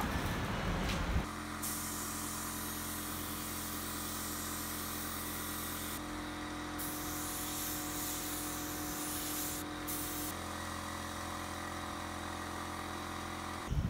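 Central Pneumatic 20 oz HVLP gravity-feed spray gun hissing as it sprays paint in three long passes, with short breaks about 6 and 10 seconds in. A steady hum runs underneath.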